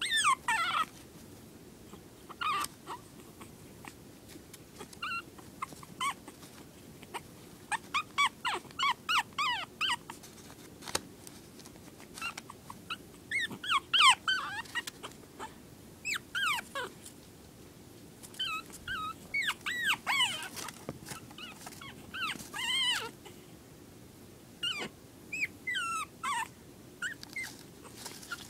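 A young puppy whimpering and whining in short, high-pitched cries that waver in pitch. The cries come in clusters of a few at a time with brief pauses between them, the loudest about halfway through. The puppy is crying for attention, left to play alone.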